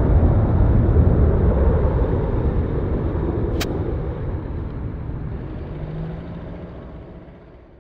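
Boeing 767-200ER jet engines rumbling as the airliner climbs away after takeoff, the sound fading steadily as it recedes. A single sharp click cuts through about three and a half seconds in.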